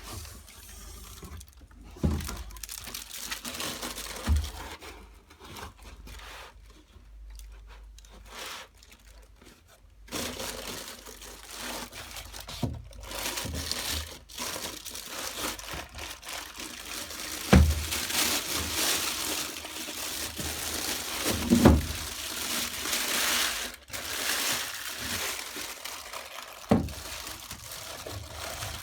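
Packaging crinkling and rustling as an inverter is lifted out of its box, with several knocks of the unit and box being handled.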